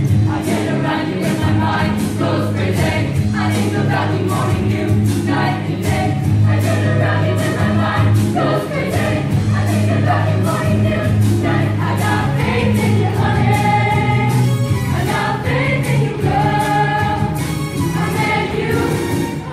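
Large mixed show choir singing over instrumental accompaniment with a steady beat and a sustained bass line.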